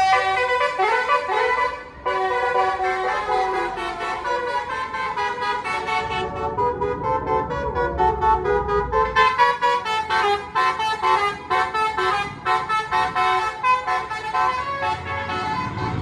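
Bus 'telolet' basuri musical horn playing a tune: held notes that change pitch, then a quick run of short notes in the second half, over a low rumble of the bus's engine.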